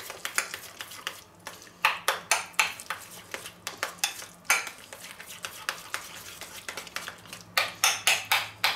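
Metal spoon stirring a thick tomato-paste sauce in a small stainless steel bowl, clinking and scraping against the bowl in a few irregular clusters.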